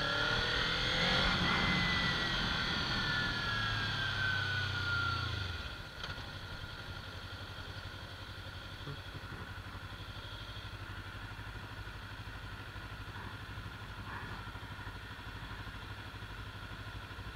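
Kawasaki Ninja 300 parallel-twin motorcycle engine running, its pitch falling as the bike slows over the first five seconds or so. About six seconds in it drops to a steady, quieter idle.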